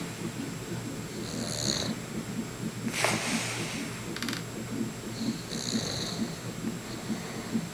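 A man snoring in his sleep: a continuous low, fluttering rattle, with a higher hissy wheeze on the breath twice, about four seconds apart, and a short noisy sniff or rustle about three seconds in.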